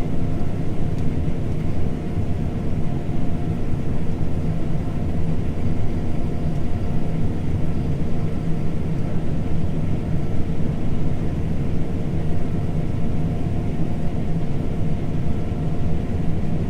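John Deere T670i combine harvester running steadily at work: a constant deep engine and machinery drone with a few steady whining tones over it.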